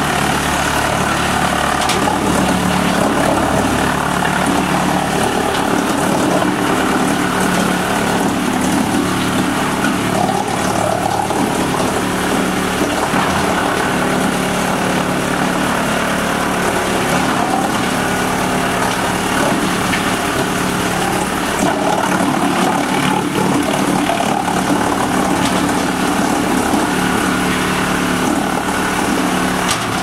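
Rotexmaster wood chipper running steadily at a constant drone while logs are carried on its infeed conveyor into the chipper.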